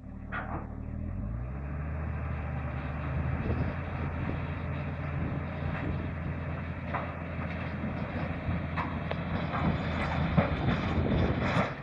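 Bulldozer's diesel engine revs up about a second in and then runs hard under load as it pushes against a gum tree, with scattered sharp clanks and cracks over it.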